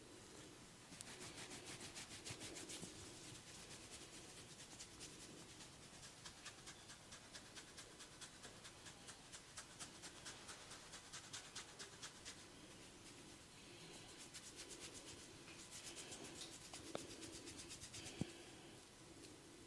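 Fingers scratching and rubbing through hair on the scalp in quick, even strokes, quiet throughout. The strokes pause about two-thirds through, then give way to softer rubbing, with two sharp clicks near the end.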